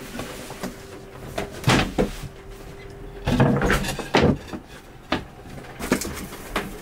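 Wooden locker boards under a boat's berth being lifted out and set aside: a series of knocks and clunks of wood on wood, with a busy cluster of them in the middle.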